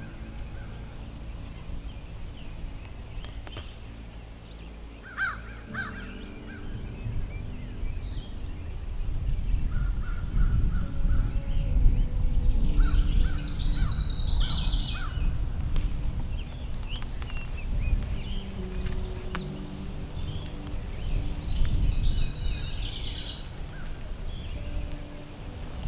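Wild birds singing and calling in quick repeated phrases, over a low rumble that grows louder through the middle.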